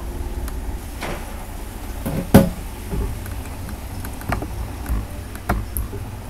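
Low, steady rumble of passing street traffic heard from inside a room, with a few sharp knocks, the loudest a little over two seconds in.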